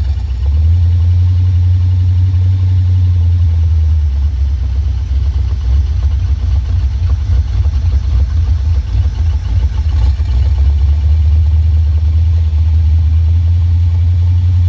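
Carbureted V8 engine with a Holley four-barrel carburetor idling, the throttle worked by hand at the carburetor; the note wavers unevenly through the middle stretch, then settles back to a steady idle.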